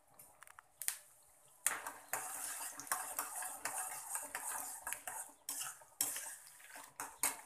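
A spoon stirring chana dal and peanuts as they fry in hot oil in a pot, scraping and clinking against the pot. The stirring comes in two spells with a short break between them.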